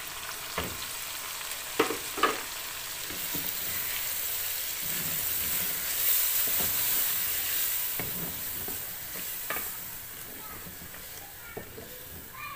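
Chicken and chillies frying in hot fat with fresh tomato purée just added, sizzling while being stirred with a spatula in a metal pot. The sizzle swells louder in the middle, and the spatula knocks and scrapes against the pot several times.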